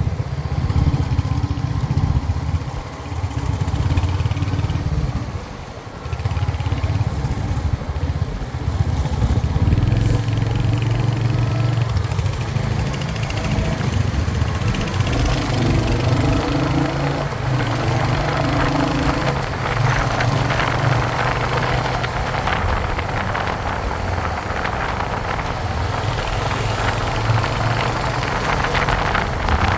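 Royal Enfield Hunter 350's single-cylinder engine and exhaust running under way, with brief dips in engine note a few seconds in, like gear changes. Wind rush grows stronger over the second half.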